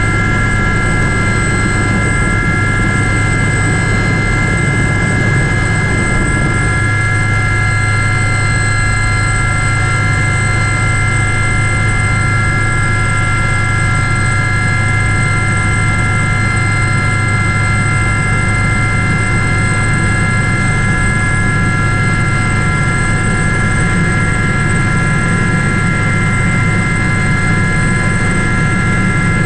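Aérospatiale Gazelle helicopter running steadily: the high whine of its Astazou turboshaft engine over a constant low rotor hum.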